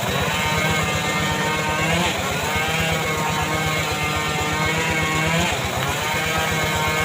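Homemade chainsaw-type saw engine running steadily under load, its pitch dipping and recovering twice as the bar works through mahogany wood.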